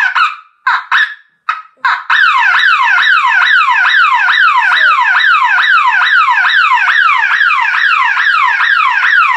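Burglar alarm bell box siren powered straight from a backup battery, sounding a very loud electronic wail that sweeps down in pitch and snaps back up, about three sweeps a second. It cuts in and out a few times in the first two seconds, then sounds continuously.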